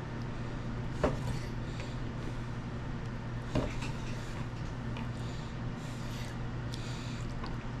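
Knife slicing raw gar fillet into nuggets on a wooden cutting board, the blade knocking sharply on the board twice, about a second in and again past the middle, over a steady low hum.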